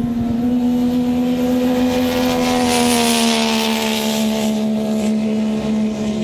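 Racing jet skis (personal watercraft) held at full throttle on a drag run: a steady, loud high engine drone with a rushing hiss that swells midway, the pitch sagging slightly near the end.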